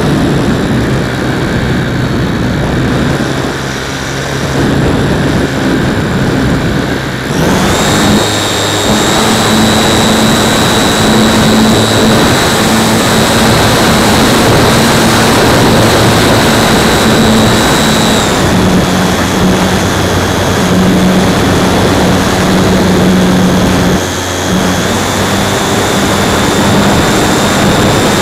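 Motor and propeller of a radio-controlled Super Cub model plane, heard through a camera mounted on the plane, with a rush of air and a steady high whine over a lower hum. The pitch steps up sharply about seven seconds in, falls back a little near eighteen seconds, and there is a short dip about twenty-four seconds in.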